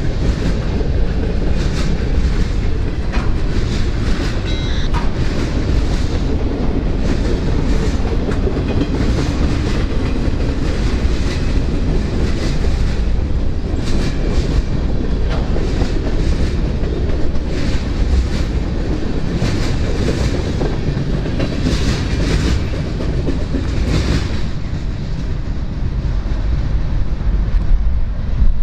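Freight train cars rolling past, a steady heavy rumble with wheels clicking irregularly over the rail joints.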